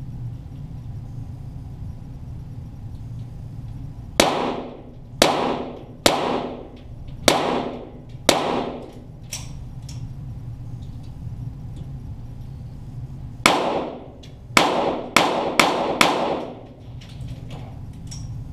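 .22 Walther GSP target pistol shots in an indoor range, heard from near the target: five shots about a second apart, then after a pause of about five seconds another five, the last four quicker. Each shot echoes briefly in the hall.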